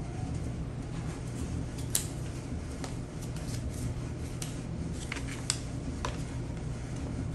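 Paper instruction cards and a folded instruction sheet handled and unfolded by hand: light rustling with scattered crisp ticks, the sharpest about two seconds in and again about five and a half seconds in, over a steady low hum.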